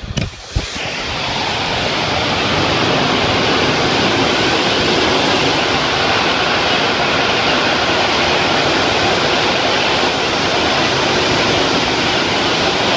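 Pressure washer wand spraying onto a brick and block wall: a loud, steady hiss of spray that builds in over the first second after a few brief knocks.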